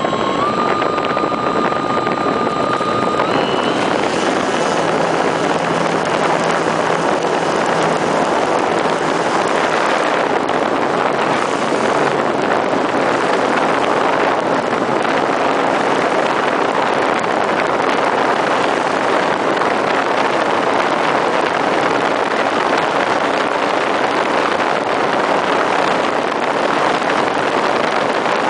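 Brushless electric motor and propeller of a Parkzone T-28 RC plane, heard from a camera on the plane. A thin steady whine steps up in pitch about half a second in and again about three and a half seconds in as the throttle opens. After that a constant rushing of propeller and airflow noise over the airframe covers it as the plane flies.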